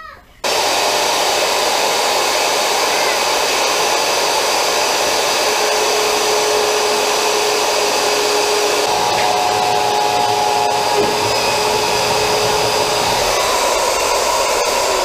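Handheld electric router switching on about half a second in, then running steadily as it cuts a square hole through the plastic deck of a kayak.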